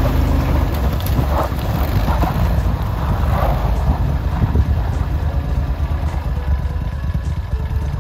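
Engine of a tracked Argo Frontier 8x8 amphibious ATV running under load as it churns through broken ice and slush, with splashes of water and ice about a second and a half and three and a half seconds in.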